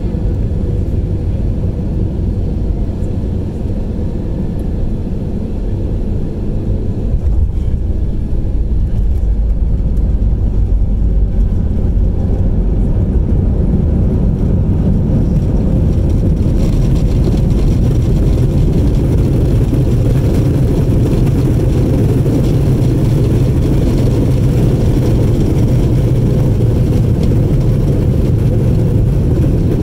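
Jet airliner cabin noise on landing: a steady low rumble of the engines and airflow heard from inside the cabin, turning louder and brighter about sixteen seconds in.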